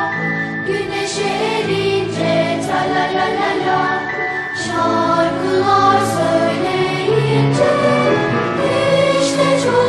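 Music: a song sung by a choir of voices over instrumental backing.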